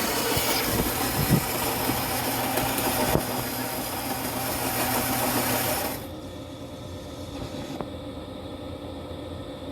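Philips 2200 espresso machine running, a steady buzzing, hissing machine sound that cuts off about six seconds in, leaving a fainter steady hum.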